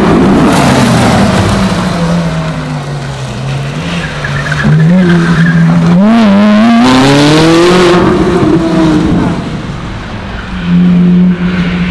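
Ferrari 458 Italia's V8, with an exhaust its filmer believes is not stock, winding down from high revs and then pulling low for a few seconds. About halfway through it revs up steeply under acceleration with a tyre squeal, drops away, and holds a short steady note near the end.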